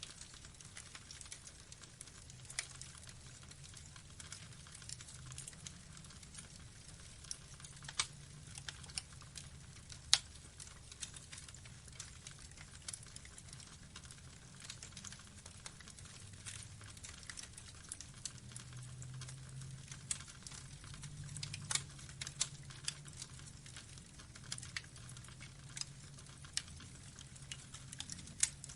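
Burning wood logs crackling: irregular sharp pops and snaps, one loud pop about ten seconds in, over a faint low rumble of the fire.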